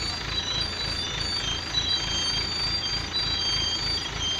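A heavy vehicle's engine running with a steady low rhythmic throb, under an electronic warning beeper playing high tones that switch on and off and step between a few pitches.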